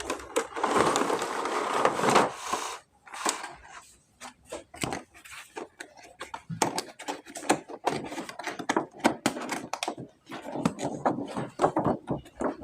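Plastic toy figures and their packaging being handled: about two seconds of rustling, then many small, irregular clicks and taps.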